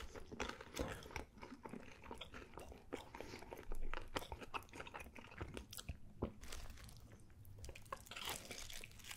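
Close-miked chewing of pepperoni pizza with thick baked crust: wet mouth sounds with many small crunches and clicks, loudest about four seconds in.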